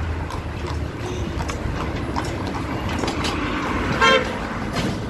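A vehicle horn gives one short toot about four seconds in, over steady street noise.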